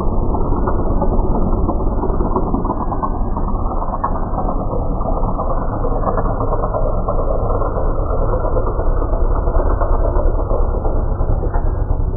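Crop-duster airplane's engine passing low overhead, with the audio slowed down along with the slow-motion picture. It comes out as a steady, low, grainy rumble with nothing high-pitched in it.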